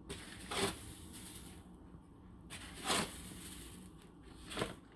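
Granulated sugar scooped with a measuring spoon out of a paper sugar bag and tipped into a stainless steel saucepan: three short noisy scoops, a couple of seconds apart.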